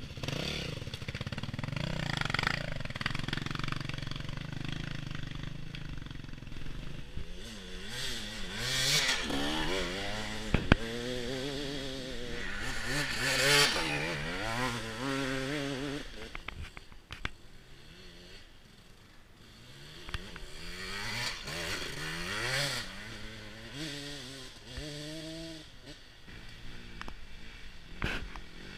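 Enduro dirt bike engines revving up and down as bikes pass one after another, the pitch rising and falling with the throttle and fading briefly before the next bike comes through. A few sharp clicks are heard, the loudest about eleven seconds in.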